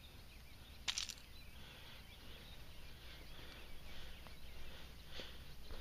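Faint outdoor background noise with light, distant bird chirping, and one sharp click about a second in.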